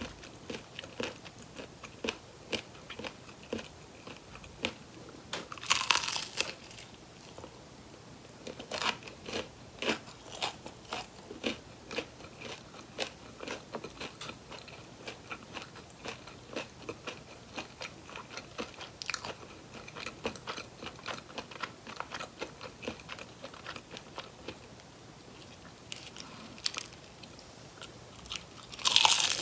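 Close-miked biting and chewing of crispy fried chicken drumsticks: a steady run of small chewing clicks, with a louder crunchy bite about six seconds in and another near the end.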